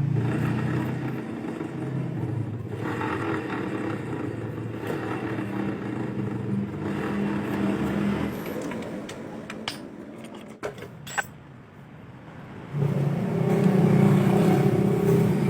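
A motor vehicle running with a steady low hum. It fades about eight seconds in, with a few sharp clicks, and comes back louder near the end.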